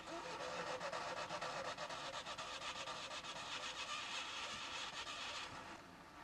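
UAZ-469 off-roader working in loose sand: a loud, rough rasping noise with a fast pulse, which starts suddenly and fades out about five seconds in.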